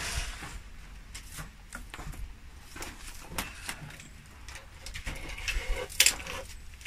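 Push broom with synthetic bristles sweeping ash and grit across the stone floor of a fireplace: a series of short scratchy strokes, the loudest about six seconds in.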